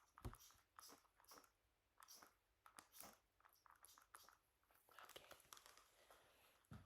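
Soft, irregular clicks and crackles from gloved hands handling medical supplies close to the microphone.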